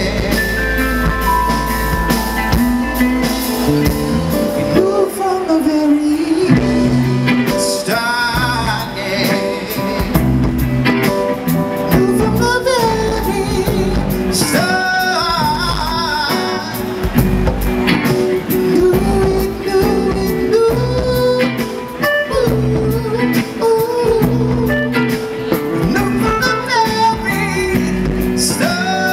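A live band playing a song with drums, bass, keyboard and electric guitar, and a man singing over it at times.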